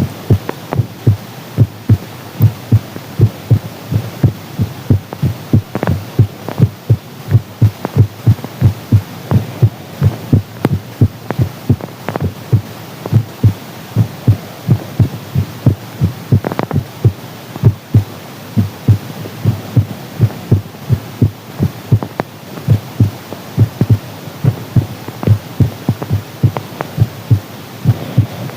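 A teenager's heartbeat heard close up: a steady, even rhythm of short low thumps over a constant hiss.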